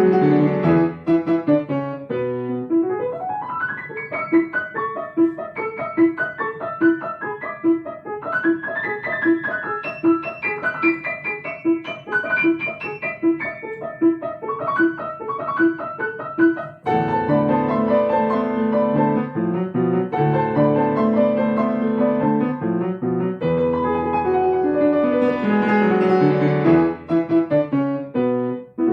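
Solo piano playing: fast running passages, then an accompaniment of evenly repeated notes under a melody, then fuller chordal passages.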